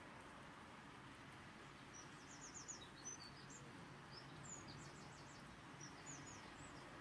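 Faint, steady rain hiss. From about two seconds in, a small bird chirps over it in quick runs of short, high notes.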